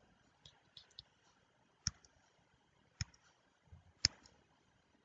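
Sparse, sharp clicks from working the pen tools of a digital whiteboard. There are three louder clicks about a second apart, with a few fainter ones among them, over a quiet room.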